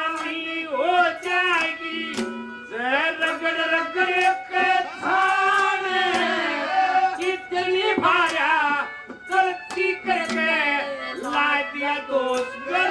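Male folk singer singing a Haryanvi ragni in a long, bending melodic line, with steady instrumental backing and frequent drum strikes.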